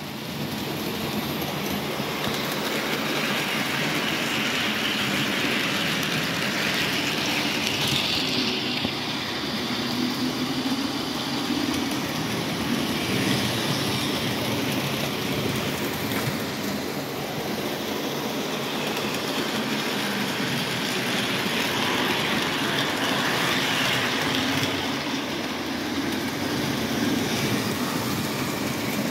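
O gauge model trains running on three-rail track: a steady noise of wheels rolling on the rails and locomotive motors running.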